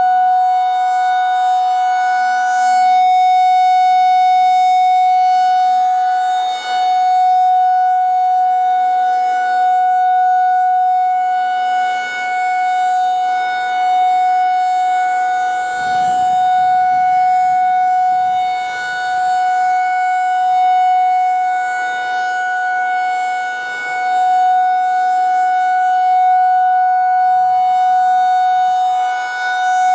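Federal Signal 2001 rotating outdoor warning siren sounding one steady tone at full speed, its loudness swelling and fading every four to six seconds as the rotating head sweeps past.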